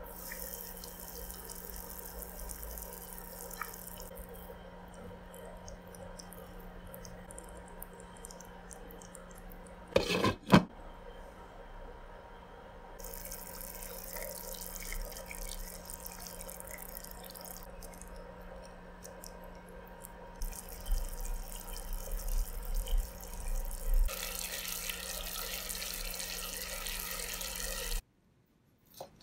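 Pork simmering in its braising liquid in a pan: a steady hiss of bubbling liquid. About ten seconds in there is a brief, loud clatter.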